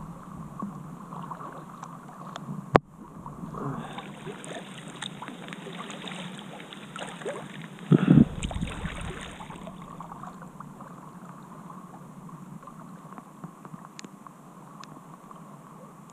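Kayak being paddled: paddle strokes and water washing and lapping at the hull. There is a sharp knock about three seconds in, a stretch of louder water wash from about four to ten seconds, and a loud thump about eight seconds in.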